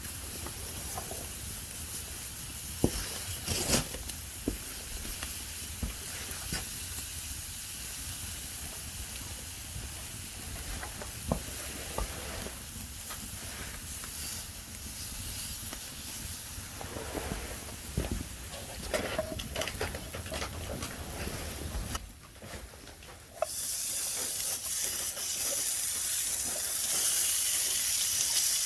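Steady sizzling and hissing over a campfire with scattered crackling pops. The sound drops away briefly late on, then comes back louder.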